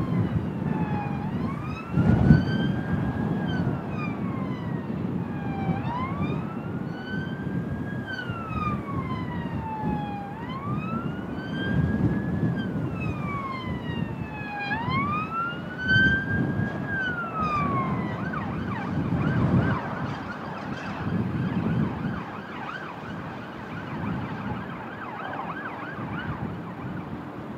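An emergency-vehicle siren wailing, its pitch slowly rising and falling about every four to five seconds, heard through strong wind buffeting the microphone. The wail ends about 18 seconds in, leaving the wind.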